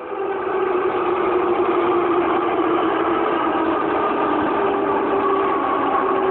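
Rail grinding on subway track involving an R142A train: a steady, loud rushing noise with a whining tone that slowly drops in pitch.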